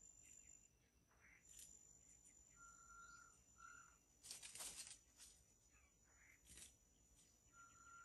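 Faint forest ambience: a steady high insect buzz, a flat two-note whistle heard twice (a longer note then a short one), and a brief rustle about four seconds in.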